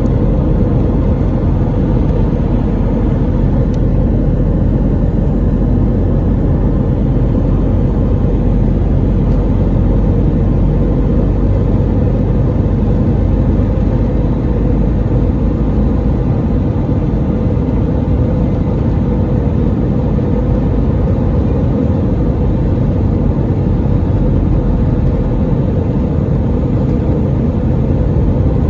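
Steady, loud rumble of an Airbus A320 jet airliner's engines and airflow.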